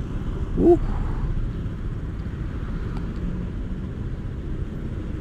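Idling motorcycle and traffic engines waiting at a red light: a steady low rumble, with a brief rising-then-falling tone just under a second in.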